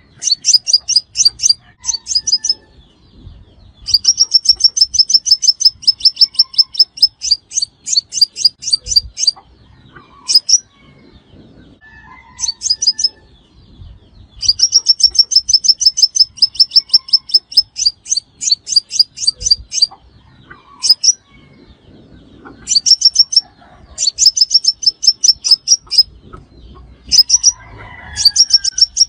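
Crimson sunbird calling: rapid trains of sharp, high-pitched chirps in bursts of one to four seconds, separated by short pauses and repeated over and over.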